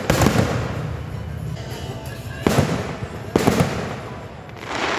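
Fireworks going off: a sharp bang at the start and two more about two and a half and three and a half seconds in, each followed by crackling, with another crackling burst building near the end.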